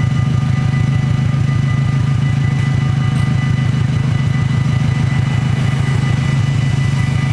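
Steady low rumble of idling car engines in a queue at a level crossing, with the crossing's warning bells ringing steadily above it as a high, unbroken tone.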